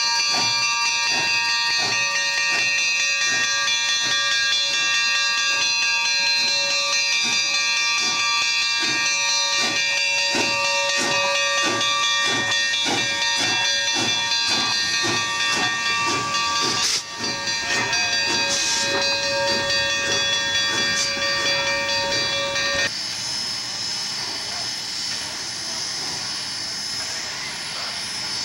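Steam locomotive No. 18 on the move, its exhaust chuffing about twice a second and quickening, over a steady hiss of steam with ringing tones. About 23 s in the chuffing gives way to a steady steam hiss from the standing Santa Fe 4-8-4 No. 3751.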